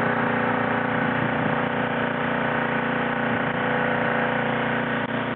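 Engine running steadily at an even speed: a constant hum of several held tones.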